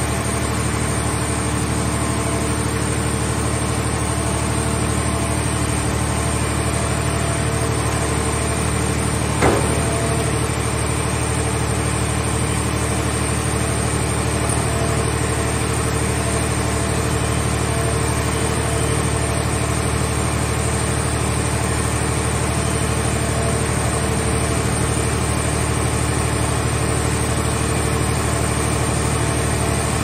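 Gasoline engine of a mobile car-scrap baler running steadily, driving its hydraulics as the grab arm loads a car body. About a third of the way in there is one sharp clank with a short ring.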